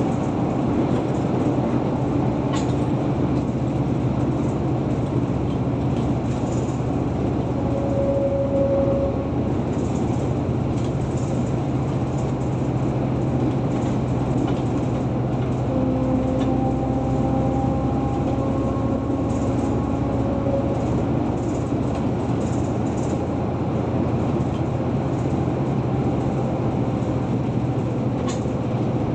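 Car driving at speed on a highway: steady tyre and engine noise with a low, even hum.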